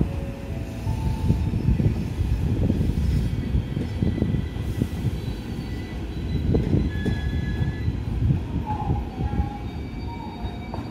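Electric trains moving slowly through a station: a JR 223-series EMU pulling in along the platform while another train on the far track moves past. There is a continuous low rumble of wheels on the rails with irregular small knocks and a few brief squeals.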